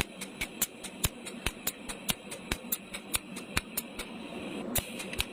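Spot welder firing repeated pulses: a fast run of sharp clicks, about four or five a second, over a steady hum, thinning out near the end.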